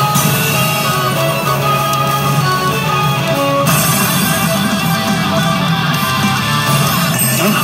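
Loud rock music with electric guitar playing from a pachinko machine's speakers.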